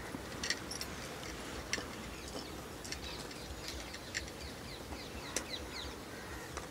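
Fried sweet corn fritters being picked up by hand and piled into a plastic bowl: a few light, scattered clicks and rustles over quiet outdoor ambience with birds chirping.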